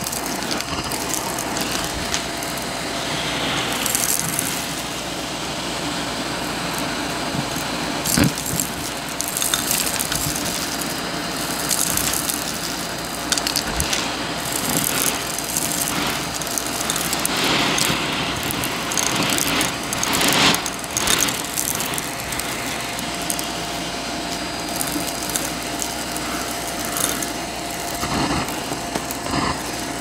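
Shark vacuum cleaner running over carpet, mic'd close, its motor and brushroll making a steady whine while beads, buttons and grit crunch and rattle as they are sucked up, with a few sharper crunches scattered through.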